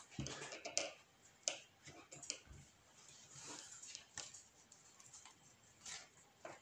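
Yu-Gi-Oh trading cards being handled on a playmat: a scatter of faint, irregular clicks and taps as cards are picked up, moved and held in hand.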